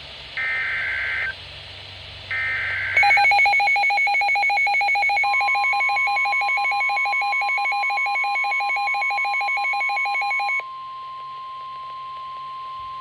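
Emergency Alert System warning tones: the last two of three short SAME header data bursts, then a fast electronic beeping alarm for about seven seconds. A single steady warning alarm tone, typical of NOAA Weather Radio, starts about two seconds into the beeping and holds on after the beeping stops.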